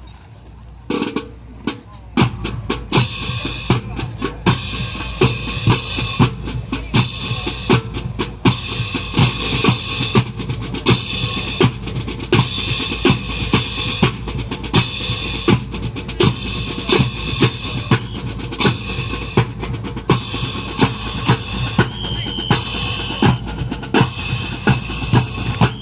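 Drum-led music with bass and snare drum, playing a steady marching beat of about two strikes a second. It starts about a second in.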